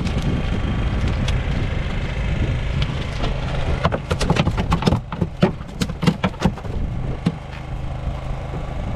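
Freshly landed trevally flapping on a boat deck: a quick run of about ten sharp slaps and knocks over roughly three seconds, after a stretch of steady low boat-engine and water noise as the fish is hauled aboard.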